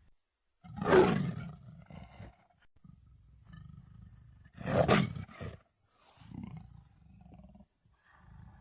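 Jaguar roaring twice, about four seconds apart, with quieter low growls in between.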